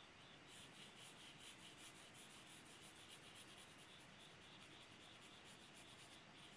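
Pencil scratching on drawing paper in quick, repeated strokes, about five or six a second, as lines are sketched in; faint. The strokes start about half a second in and stop just before the end.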